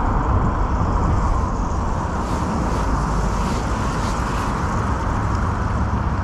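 Steady road traffic noise with a strong low rumble.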